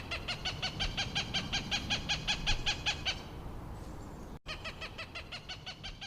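Partridge calling: a fast, even run of repeated harsh notes, about six or seven a second, breaking off about three seconds in and starting again after a short pause.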